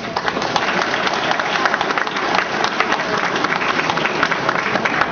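Audience applauding: many hands clapping at once in a dense, steady wash that breaks out suddenly.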